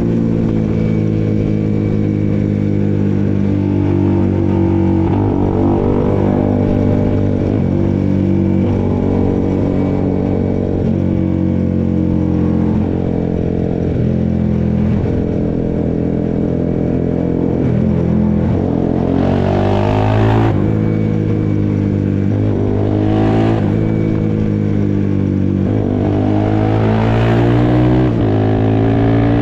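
Honda CBX 250 Twister single-cylinder four-stroke engine, bored out to 79 mm and breathing through a sized aftermarket exhaust, running with a loud rumble. Its pitch rises and falls with the throttle, with three harder revs in the last third.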